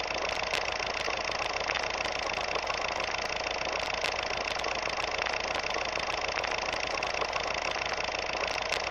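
A steady mechanical hum with faint scattered ticks, unchanging throughout.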